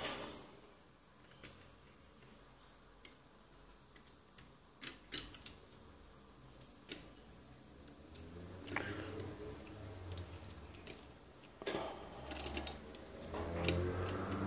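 Scattered faint clicks and taps of a small metal tool and parts being handled against a chrome microphone body as a part is worked loose. A low rumble of handling noise comes in about halfway through.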